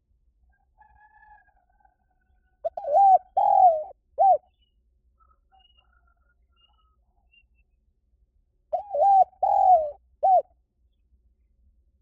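Spotted dove cooing: two loud phrases about six seconds apart, each a short note, a longer coo and a short closing note, with fainter calls in the background.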